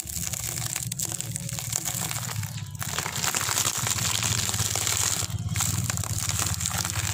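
Motorbike tyre rolling over homemade candy balls wrapped in clear plastic, crushing them with a crackling crunch and crinkling of the wrappers. A steady low hum runs underneath.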